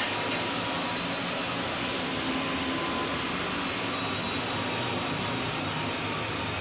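Steady, even hiss with a faint hum and a couple of thin, unchanging high tones, with no distinct events: the background noise of an old half-inch Portapak videotape recording.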